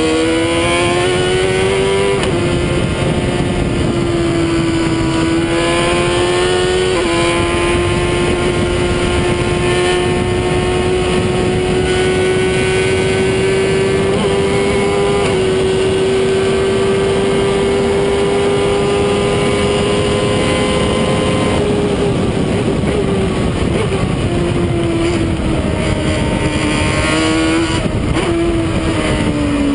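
Onboard sound of a Stohr WF-1 sports racer's engine at high revs under throttle, holding a nearly steady pitch for long stretches with a few gear changes, then dropping in steps about three quarters of the way through as the car slows and downshifts. Wind rush in the open cockpit runs under it.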